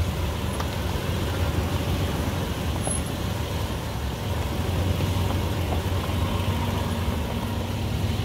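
Off-road trucks and SUVs crawling slowly along a dirt trail: engines running with a steady low rumble.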